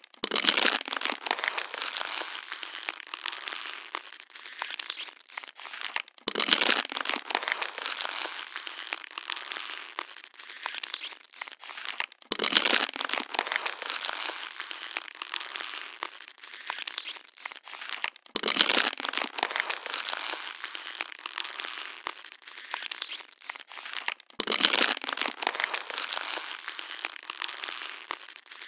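Plastic water bottle being crushed and crinkled. Each round opens with a sharp crackling crunch that then settles into lighter crinkling, and the rounds repeat about every six seconds, five times in all.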